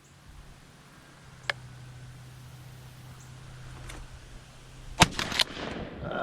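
A quick string of three shotgun shots about five seconds in, sharp and loud, over a steady low hum.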